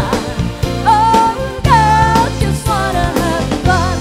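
A live pop band playing: a woman singing lead with long held notes over a drum kit, electric bass guitar and keyboard.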